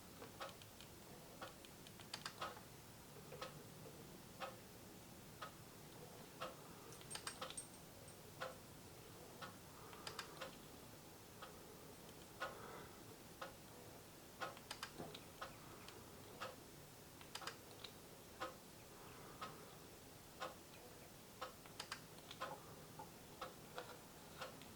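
Faint camera shutter clicks fired in short quick bursts of several frames, several times over. A steady faint tick sounds about once a second throughout.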